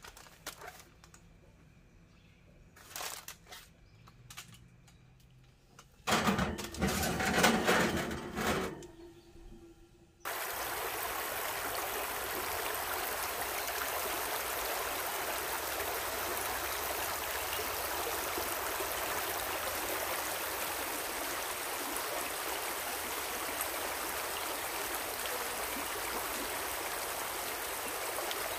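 Aluminium foil crinkling and rustling as it is crimped over a baking dish, loudest around six to nine seconds in. About ten seconds in, a steady rush of a small stream running over rocks starts suddenly and continues.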